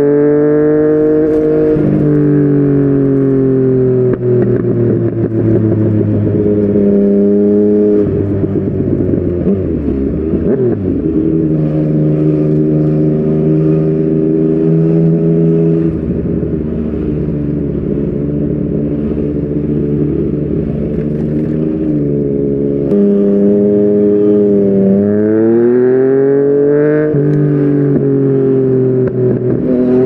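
Yamaha MT-09's inline-three engine running through a Yoshimura R55 slip-on exhaust while riding. The exhaust note holds fairly steady with several abrupt pitch steps at gear changes, then rises under acceleration over the last few seconds.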